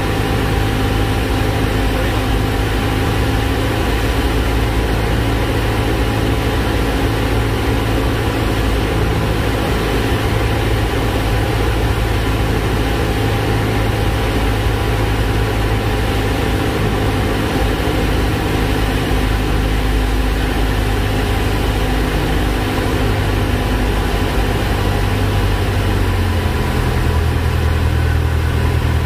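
Cessna 172's piston engine and propeller running steadily, heard from inside the cabin on final approach. About three seconds before the end the engine note drops as power is pulled back over the runway for the landing.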